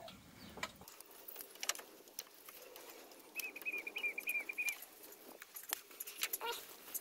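Scattered light clicks and taps of a hand handling parts in a car's engine bay. About three and a half seconds in, a bird gives a short trill of quick, even chirps at one pitch.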